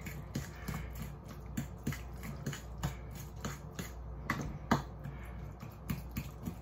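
Irregular light clicks and taps from food preparation at a kitchen counter, a few a second, with two louder knocks about four and a half seconds in.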